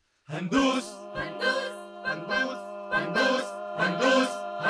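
A large a cappella choir's song begins suddenly a moment in: many voices holding sung chords over a steady beat of hand claps and percussion hits.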